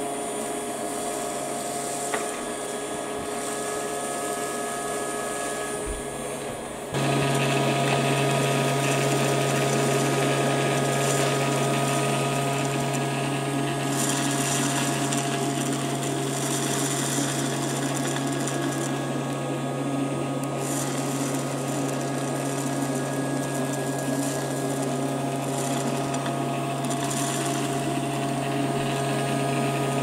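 Battery-powered toy Henry vacuum cleaner's small electric motor running with a steady whine as it sucks up polystyrene beads. It gets louder about seven seconds in.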